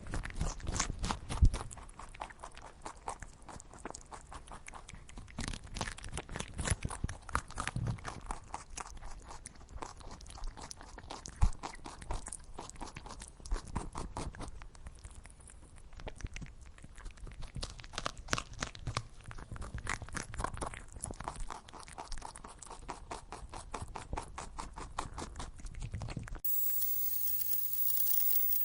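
A rabbit eating: rapid crunching and chewing in uneven bursts. The chewing stops abruptly about 26 seconds in, and a short, louder, different sound follows at the very end.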